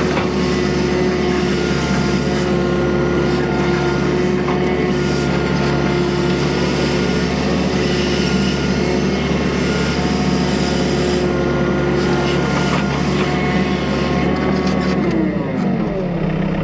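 Excavator's diesel engine running steadily at working revs, then its revs drop and settle to a lower idle near the end.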